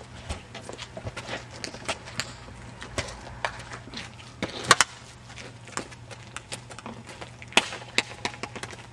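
Irregular clicks and knocks, several a second, with a sharp double knock about halfway through and two more near the end, over a steady low hum.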